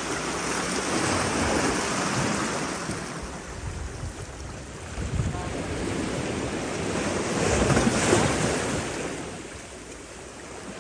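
Sea waves washing in and out, the rushing noise swelling twice and falling away, with wind buffeting the microphone.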